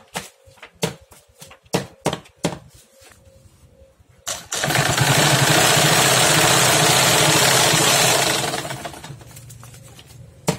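Old sewing machine running fast for about four seconds, its bare needle punching a perforation line through a stack of receipt paper, then slowing and dying away. Before it, a few clicks and rustles as the paper is handled and positioned.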